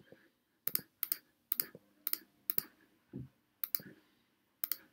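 Computer mouse clicking about twice a second as digits are entered one at a time on an on-screen calculator. Each click is a quick double snap of press and release, and there is one duller low thump about three seconds in.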